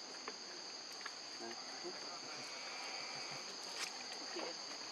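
Steady high-pitched drone of an insect chorus, holding two even pitches throughout, with a few faint clicks over it.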